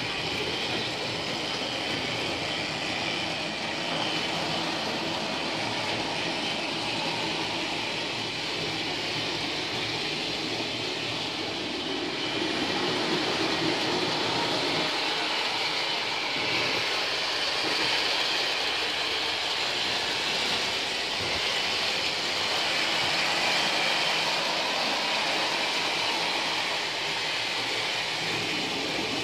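Model railway trains running around the layout: a steady whirr of small electric locomotive motors and wheels rolling on the rails, a little louder from about halfway through.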